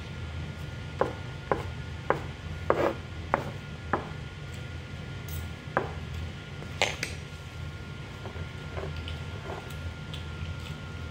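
Metal spoon and fork clicking and scraping against rice on a paper food wrapper, with a quick run of sharp clicks in the first few seconds and a few more later. A steady low hum runs underneath.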